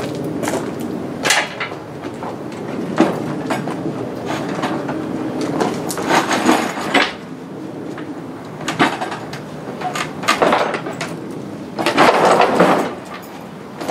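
A wheeled sewer-cleaning machine being shoved and dragged across a steel table onto a pickup's tailgate: scattered knocks and clanks, with longer scraping stretches about six seconds in and again near the end.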